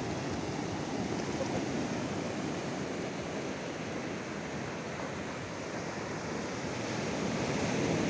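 Ocean surf breaking over a rocky reef flat and washing through the shallows: a steady rush of water that dips slightly partway through and swells again near the end.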